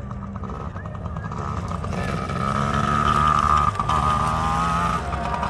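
Yamaha PW80 two-stroke youth dirt bike riding up and past, its high buzzing engine growing louder over the first few seconds and dropping slightly in pitch as it goes by.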